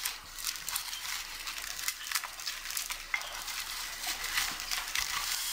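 A metal spatula scraping and crunching through a baked salt crust in a ceramic baking dish: a run of small scrapes, crackles and clicks as salt-baked sardines are lifted out.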